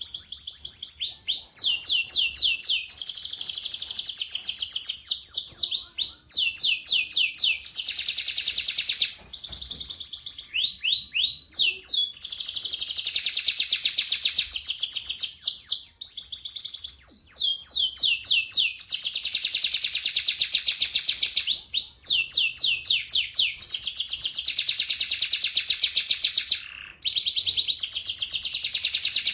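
Domestic canary singing long, continuous rolling trills, broken by runs of quick downward-sweeping notes and a few brief pauses.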